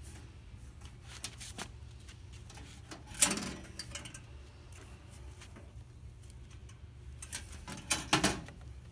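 Metal lid of a Camp Chef Deluxe Outdoor Oven being lifted open with a loud clank about three seconds in, then lowered shut with a few clanks near the end, with light handling taps before.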